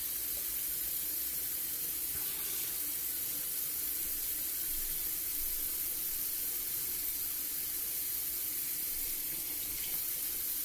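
Kitchen tap running steadily into a stainless steel sink, the stream falling onto raw chicken gizzards.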